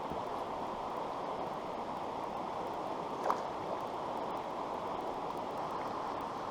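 Creek water running with a steady rush, with one brief click about three seconds in.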